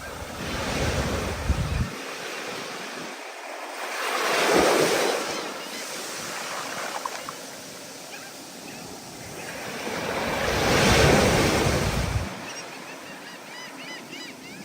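Stormy ocean surf: waves breaking and washing in, swelling up and fading three times, loudest about four and a half and eleven seconds in. Wind rumbles on the microphone under the bigger swells.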